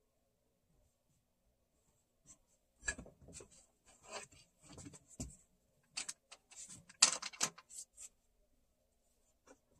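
Scattered clicks, light knocks and short rubbing or scraping noises, like small objects being handled, starting about two seconds in and stopping about eight seconds in.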